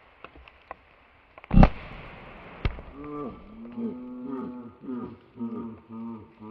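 A single shotgun shot about a second and a half in, sharp and sudden with a short decay. After it come drawn-out, low, wavering voice-like tones that slide up and down.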